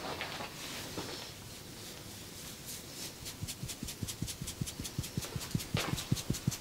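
Hands striking the body in a fast, even rhythm of percussive massage strokes, about six slaps a second, starting about three seconds in and getting louder.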